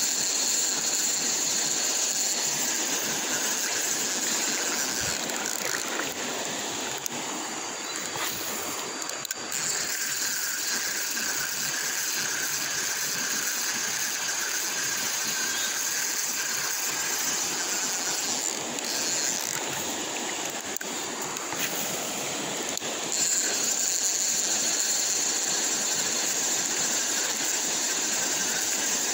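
Steady riverside ambience: water running over a rocky riffle, under a constant high-pitched hiss, growing a little louder about three-quarters of the way through.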